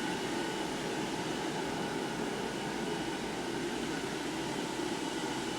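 Steady indoor room noise: an even hiss with a faint high steady tone, unchanging throughout, with no distinct events.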